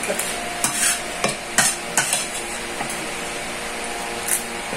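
A spoon clinking and scraping against a ceramic plate a handful of times during eating, over a steady background hiss.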